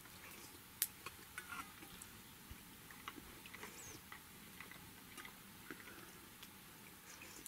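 Faint scattered clicks and light taps, with one sharper click about a second in.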